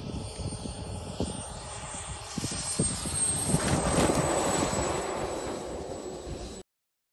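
Small gas turbine of a Tomahawk Aviation Futura 2.5 m RC jet whining as the jet lands and rolls out along the strip. It is loudest about four seconds in, with wind buffeting the microphone, and it cuts off suddenly near the end.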